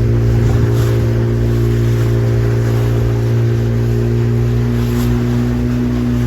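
Motorboat engine running at a steady speed, a constant low hum with wind and water noise over it.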